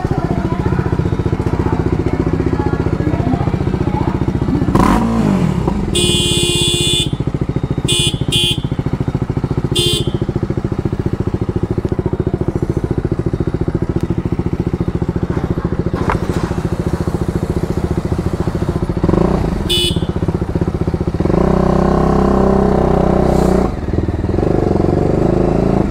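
BMW G310RR's single-cylinder engine running steadily while riding. Several short, high-pitched beeps come in the first half and once more later.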